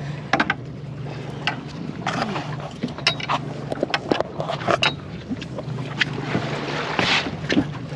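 Steady low hum of the boat's motor running, with scattered clicks and knocks from tackle and gear being handled in the cockpit. A brief swell of noise comes about seven seconds in.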